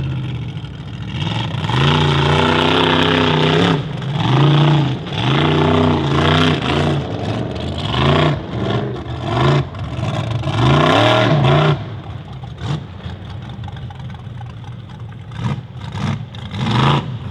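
Formula Offroad buggy's engine revving hard in repeated bursts, its pitch rising and falling with each blip of the throttle. After about twelve seconds it drops to a quieter, lower running.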